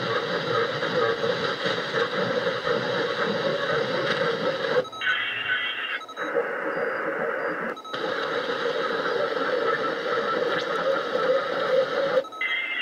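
Shortwave receiver static hissing from an HF transceiver's speaker. The noise changes abruptly several times, with a short dropout at each change, into a thinner hiss with faint steady whistles as the receive mode is switched between AM and sideband.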